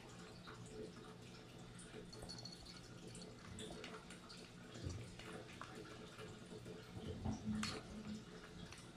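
Domestic cat eating wet cat food from a plastic bowl: faint wet chewing and smacking, small irregular clicks, with a few louder clicks about five seconds in and again around seven to eight seconds.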